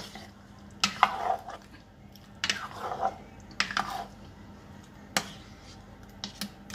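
Silicone spatula stirring thick coconut-milk stew with chunks of banana and root crops in a pot, with scattered sharp clicks and knocks of the spatula and pot and short wet scraping sounds between them. A steady low hum runs underneath.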